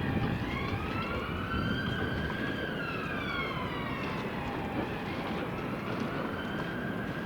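Emergency vehicle siren wailing, its pitch sweeping slowly up and down, over the low rumble of street traffic.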